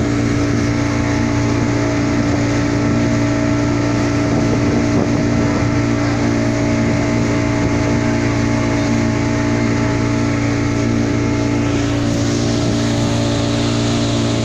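Pontoon ferry boat's motor running at a steady speed with a constant drone, over the rushing wash of its wake. The hiss grows stronger near the end.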